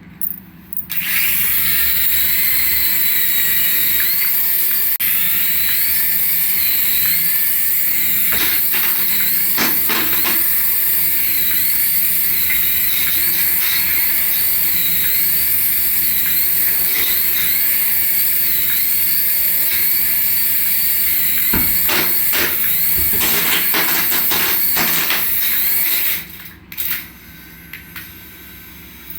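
A battery-powered toy's small electric motor and gears running with a high whine that wavers up and down about once a second. It starts about a second in and cuts off near the end.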